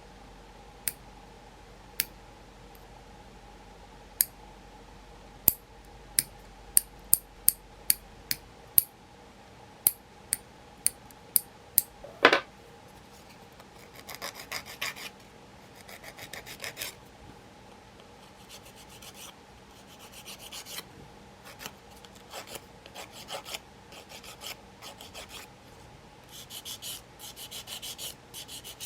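Nails being filed by hand with a nail file: bursts of quick rasping strokes through the second half. Before that come a dozen or so sharp separate clicks, the loudest about twelve seconds in.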